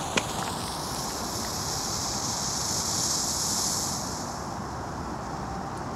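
A firecracker's lit fuse burning down with a steady hiss, with a single crackle just after the start.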